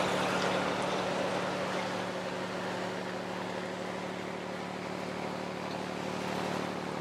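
Trawler under way: the steady low drone of its diesel engine with a rushing hiss of wind and water over it.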